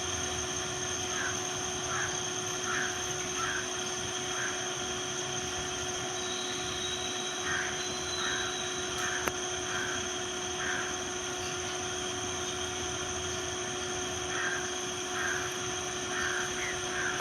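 Steady outdoor hiss with a constant hum, over which a short animal call repeats in three runs of four to six calls, roughly one call a second.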